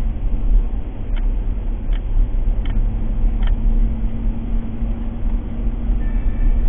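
Car driving slowly, heard from inside the cabin: a steady low engine and road rumble. Four faint, evenly spaced ticks sound in the first half, and a low steady hum joins near the end.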